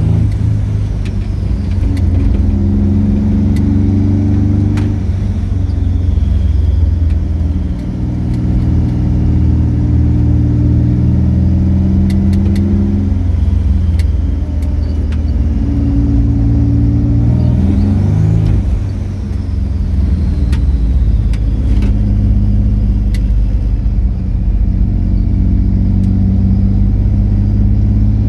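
Car engine heard from inside the cabin, running steadily on the road. Its note drops briefly and changes pitch about eight seconds in and again about nineteen seconds in.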